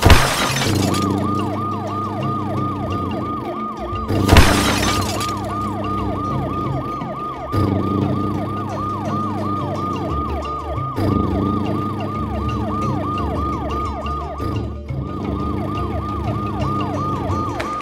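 A yelping siren sweeps up and down about three times a second over low sustained tones. Two loud, noisy crash-like bursts come at the start and about four seconds in.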